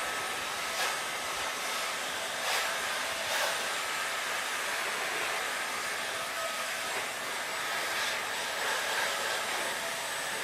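Electric heat gun running, blowing hot air with a steady hiss and a faint steady whine while it softens a thermoformable carbon composite sheet on a foot mold. A few light knocks in the first few seconds.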